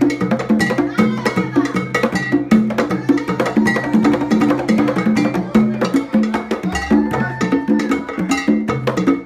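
Live band playing rumba dance music: a bass line pulsing in a steady repeating pattern under busy percussion with many sharp clicking strikes.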